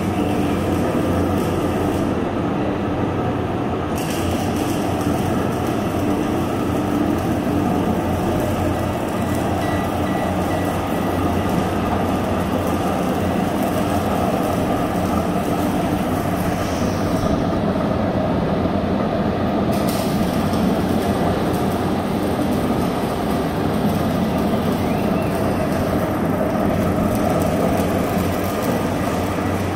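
Horizontal ribbon mixer running: a steady, loud drone from its electric motor and reduction gearbox, with a few steady hums in it.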